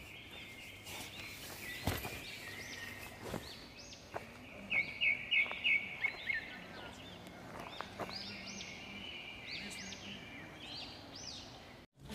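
Birds chirping outdoors: many short calls that rise and fall, overlapping, with a quick run of sharper chirps about five seconds in.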